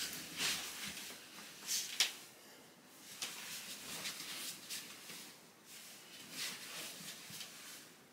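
Faint, irregular soft footsteps and rustling of clothes as a person walks back and forth and turns around.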